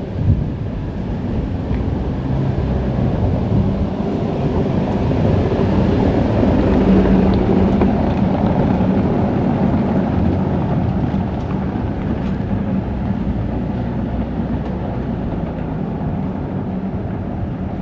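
A motor vehicle running with a low rumble and hum, growing louder to a peak about seven seconds in and then slowly easing off, as if it passes close by.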